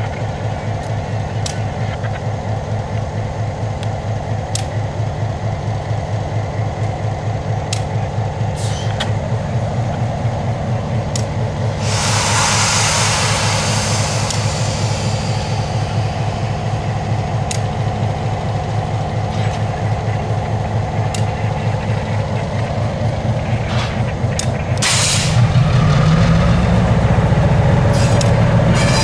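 EMD SW9 switcher's 12-cylinder 567 diesel idling with a steady low throb and scattered sharp clicks. About twelve seconds in, a loud hiss of brake air lasts a few seconds as the tank car is cut off. Near the end another short hiss comes, then the engine speeds up and gets louder as the locomotive pulls away.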